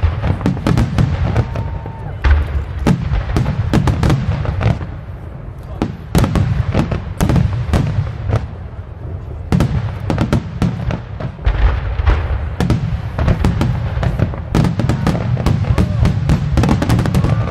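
Aerial fireworks shells bursting in rapid, overlapping succession: many sharp booms and cracks over a continuous deep rumble.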